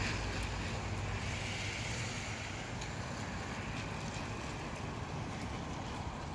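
Rain shower with breezy, gusty wind: a steady, even rush with faint scattered ticks, the low rumble of the gusts strongest in the first couple of seconds and easing a little after.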